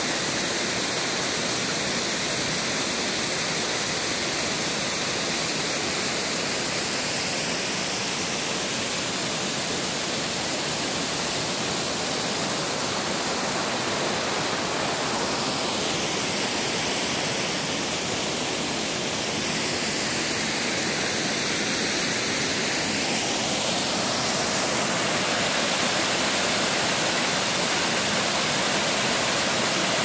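Waterfall at Little North Fork Falls, a steady rush of falling water. Its tone sweeps slowly through the middle, and it grows a little louder toward the end.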